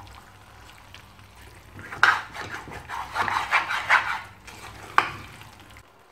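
A spoon stirring and scraping chicken pieces sautéing in thick masala in a pot. There is a run of scraping and clattering from about two seconds in to past four, then one sharp knock about five seconds in.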